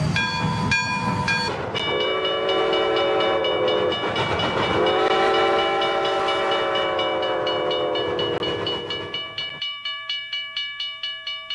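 Toy train sound effects: a few short toots, then two long blasts of a multi-note train horn. Near the end comes a rhythmic clacking of about four beats a second.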